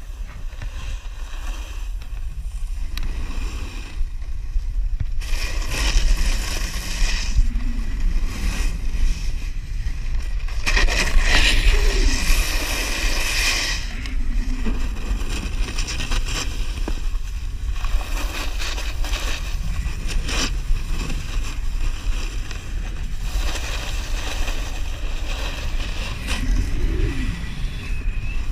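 Wind buffeting an action camera's microphone over the hiss and scrape of a snowboard carving across packed snow. The scraping is loudest in a stretch about eleven to fourteen seconds in, during a hard turn that throws up snow.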